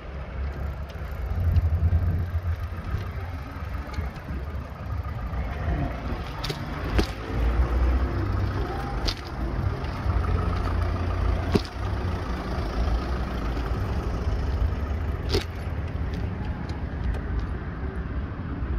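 Car and road traffic noise: a steady low rumble with a handful of sharp clicks or knocks scattered through it.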